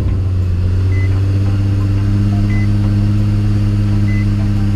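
Nissan 350Z's V6 engine running at a steady speed, with a short high warning chime beeping about every one and a half seconds.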